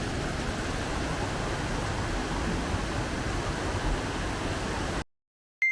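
Steady rush of a mountain stream's flowing water, which cuts off suddenly about five seconds in. A moment later comes a single bright chime that rings briefly and fades.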